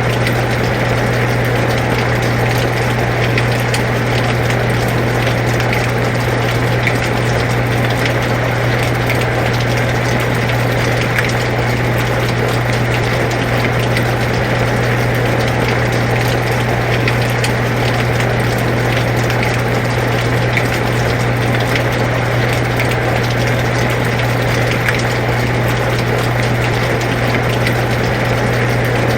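Air conditioner running with a steady low hum, mixed with the even hiss and faint pattering of steady rain.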